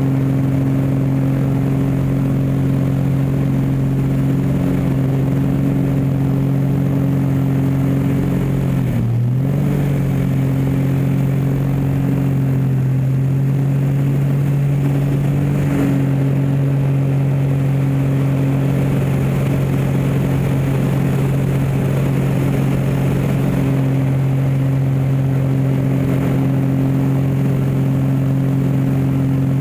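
Aerobatic biplane's piston engine and propeller running at high power in flight, heard from inside the open cockpit with wind rushing past. About nine seconds in, the engine note dips sharply for a moment, then recovers to a steady drone.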